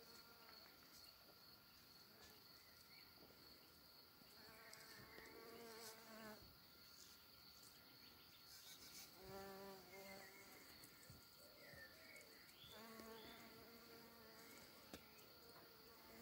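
Bumblebee buzzing faintly as it forages at comfrey flowers, in three short bouts of a second or two each, about four, nine and thirteen seconds in.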